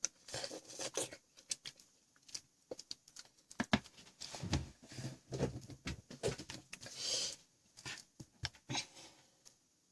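Irregular clicks, taps and rustling of hands handling a small plastic snack sauce cup and a wet wipe, with a longer rustle about seven seconds in, as the oily sauce cup is wiped clean.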